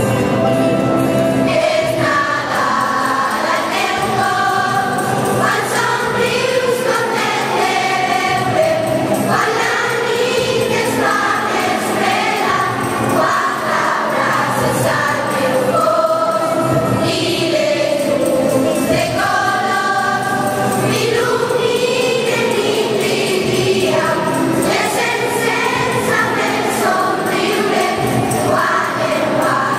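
A school choir of children and teenagers singing a Christmas carol (villancico) together, in several voices, without a break.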